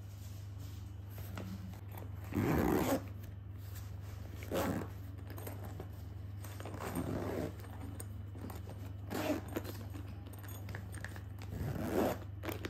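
Zipper on a fabric insulated double-decker lunch bag being pulled in several short runs, the longest and loudest about two and a half seconds in and a last one near the end.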